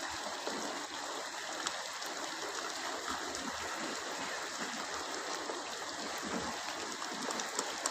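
Heavy rain falling steadily onto a flooded flat roof, an even wash of splashing water with scattered sharp ticks of drops striking.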